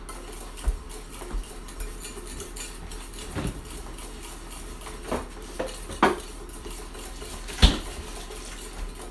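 A metal whisk stirring thickened pastry cream in a small stainless-steel saucepan, scraping and clinking against the pan a handful of times, with the sharpest clink late on.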